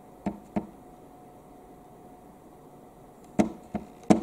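Fingertip tapping and pressing the unit button on a Polder digital kitchen scale: two taps just after the start, then three quicker, louder taps near the end. The presses are repeated because the button is hard to register and the unit is not changing over.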